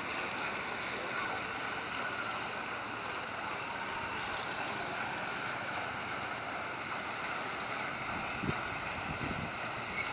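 Steady splashing of water falling from a mushroom fountain into a swimming pool.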